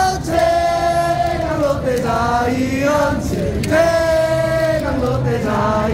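A large crowd of baseball fans singing a cheer song in unison, with long held notes.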